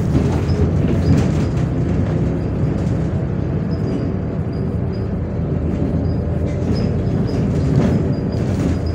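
Inside a MAZ 105 articulated city bus on the move: a steady low rumble of engine and road noise, with light rattles from the body and fittings.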